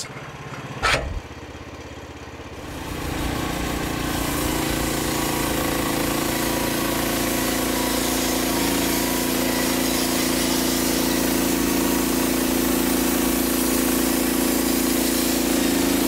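A sharp knock about a second in. Then the 13 hp Briggs engine of a Frontier OS27 portable band sawmill throttles up over a second or so and runs steadily under load while the band blade cuts through a log.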